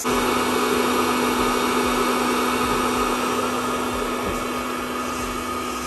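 Hot-air home coffee roaster running: its fan blows a steady rush of air with a steady hum. It comes in suddenly and slowly grows quieter.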